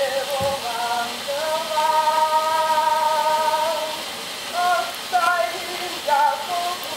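An old phonograph cylinder recording of a voice singing long held notes, played back through a stylus riding the cylinder's groove. Steady surface hiss from the cylinder runs under the voice.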